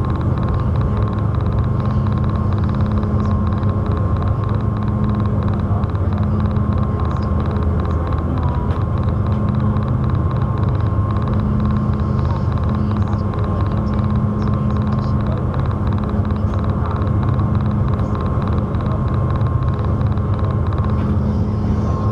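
Ferry's engines droning steadily inside the passenger cabin: a constant low hum with a thin high tone over it. A few clicks come right at the end.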